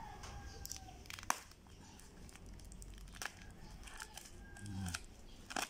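Faint crinkling and rustling of a parcel wrapped in plastic packing tape being turned over in the hands, with a sharp click about a second in. Near the end come small snips as scissors start cutting into the tape wrapping.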